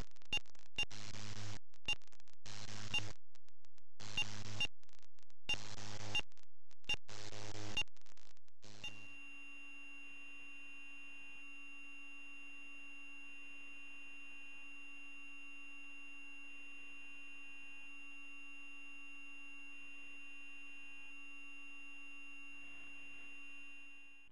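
Electronic buzz and hiss with a low mains-like hum on a video recorder's audio line, switching on and off in short blocks. About nine seconds in it drops to a quieter, steady electronic whine of several pure tones held without change.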